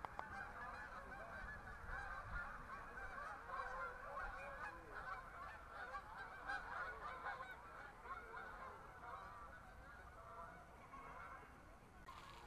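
A flock of geese honking, many calls overlapping in a continuous chatter that grows fainter near the end.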